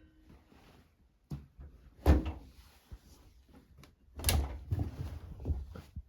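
A series of knocks and clunks of something being handled, the loudest about two seconds in and about four seconds in, with several lighter knocks near the end.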